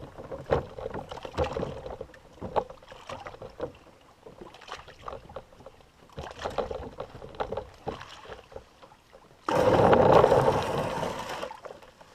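Irregular knocks and clatter of a canoe hull with water sounds at the shore. About two-thirds of the way through, a loud rushing noise lasts about two seconds.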